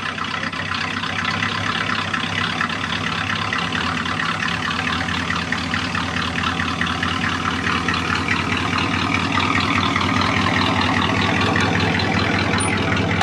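1986 Chevy C10's 305 (5.0 L) small-block V8 idling steadily just after being started, its exhaust running through aftermarket Thrush mufflers.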